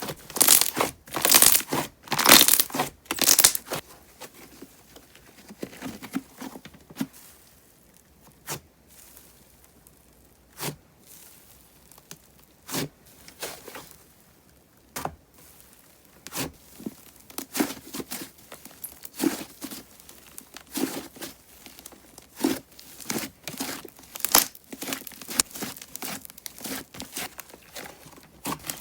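Thick, glossy clay-mixed slime squished, folded and pressed by hand, giving bursts of crackling and popping air bubbles. There is a loud run of pops in the first few seconds, scattered single pops through the middle, and then steady popping again.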